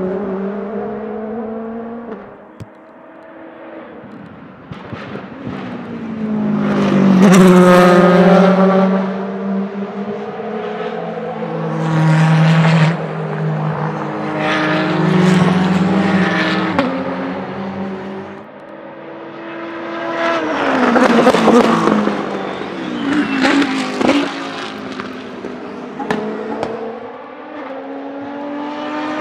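Racing V8 of the Oreca 07 LMP2, a 4.2-litre naturally aspirated Gibson GK-428, passing several times. Its revs rise and then drop in steps at each upshift, and it swells and fades with each pass. Near the end a different race car takes over.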